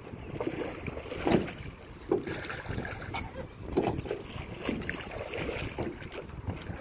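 Rowboat being rowed with wooden oars: the oars working in the oarlocks and dipping into the water, a short sound about once a second, over wind buffeting the microphone.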